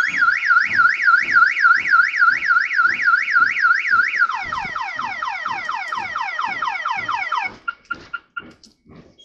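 A car alarm sounding: a rising-and-falling wail repeating about three times a second, switching about four seconds in to a repeated falling sweep, then stopping about seven and a half seconds in. Under it, the steady rhythmic clatter of a passenger train's wheels rolling past.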